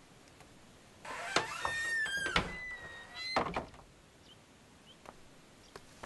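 A drawn-out wooden creaking squeal with scraping, starting about a second in and lasting about two and a half seconds in two parts.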